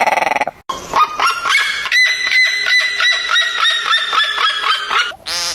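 An animal calling: a long run of evenly repeated calls on a steady pitch, about four a second, for about four seconds, followed by a brief rapid rattle near the end.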